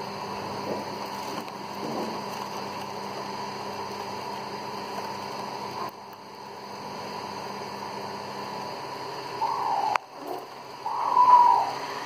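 Steady hum, with a click and then a few short wavering budgerigar chirps in the last few seconds, the last one the loudest.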